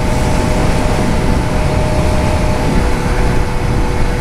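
Motorcycle riding at a steady speed: heavy wind noise on the helmet microphone over an engine hum that holds a few steady tones.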